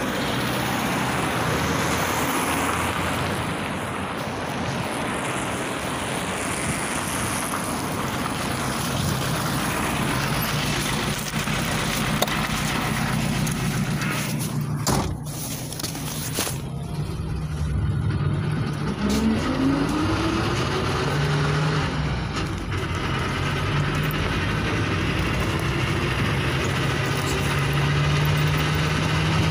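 Street traffic noise, with a couple of sharp knocks near the middle. Then the cabin noise of a Luidor-225000 (GAZ-322133) minibus as it pulls away: its engine hum climbs in pitch as it speeds up, then runs steadily.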